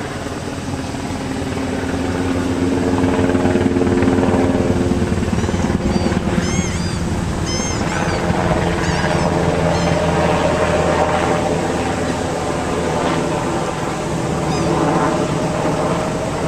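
An engine running steadily, getting louder about two seconds in. A few high chirps sound over it in the middle.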